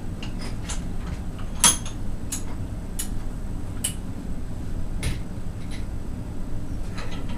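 Scattered metal clinks and knocks as a removed system pump is set and clamped in a bench vise, the loudest about a second and a half in, over a steady low hum.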